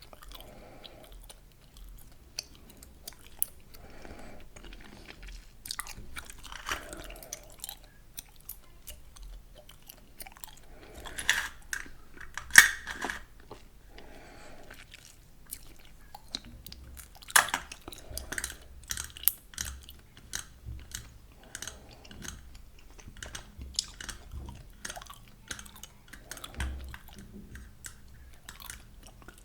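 Gum being chewed close to the microphone: a steady stream of irregular wet clicks and smacks, with a few louder snaps around the middle.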